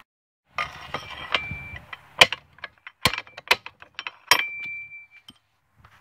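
Metal clanking and clinking of a box-end wrench and steel jaw coupling on a small engine's crankshaft as the coupling is unbolted and pulled off: a string of sharp knocks, two of them leaving a brief metallic ring.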